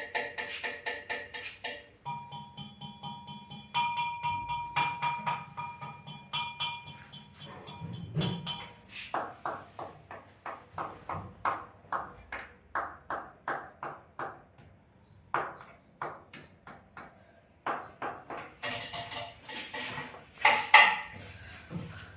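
Repeated ASMR tapping on the bike's hard surfaces, each tap ringing briefly with a clear ping, at about three taps a second, with a louder cluster of taps near the end.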